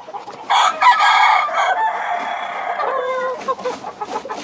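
Gamecock crowing: one long crow that starts about half a second in and lasts over two seconds, followed by shorter, lower calls near the end.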